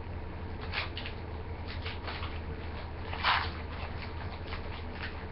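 Trading cards being handled and slid against each other, with a few short rustles and a longer, louder one a little over three seconds in, over a steady low hum.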